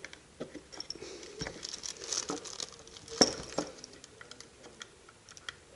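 Hands handling the small plastic switch assembly and wiring of a disassembled cordless impact driver: scattered light clicks and rustles, with the sharpest click a little over three seconds in.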